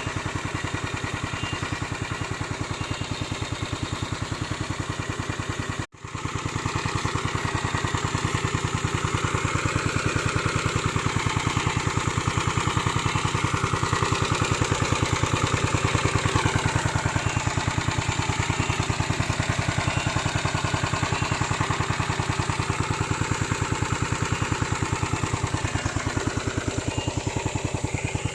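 Remote-controlled lawn mower's small engine running steadily with an even rapid firing pulse. The sound cuts out for an instant about six seconds in, then runs on a little louder.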